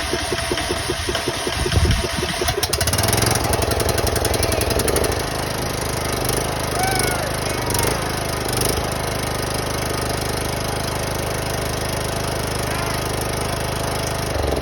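John Deere L100 riding mower's Briggs & Stratton Intek engine cranking on the starter with the choke on, catching about three seconds in and then running steadily.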